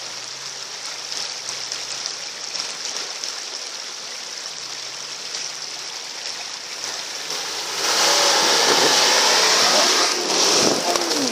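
Four-wheel-drive SUV's engine running low with shifting revs as it works through deep mud, under a steady hiss. About eight seconds in, a much louder rushing noise takes over for roughly three seconds, then drops away.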